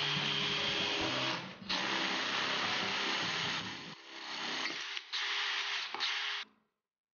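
Electric drill running as a freshly sharpened twist bit cuts into a thin metal bar held in a vise: a steady motor whine with the grinding of the bit biting through the metal. It eases off briefly about 1.5 s in and again around 4 s, stops twice for a moment near the end, then cuts off about 6.5 s in.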